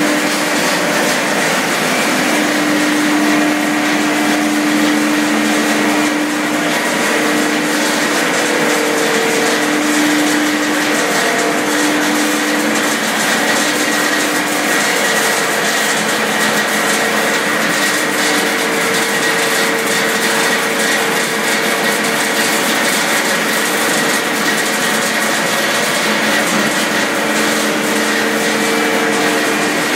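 XGJ560 pellet mill running on a test, a loud steady machine noise with a few steady hums, some of which fade in and out.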